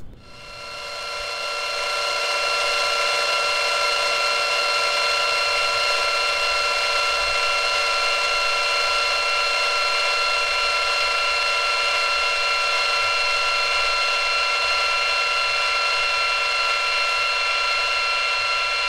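Eerie horror-film drone: a steady cluster of high ringing tones that swells in over the first two seconds, then holds level without change.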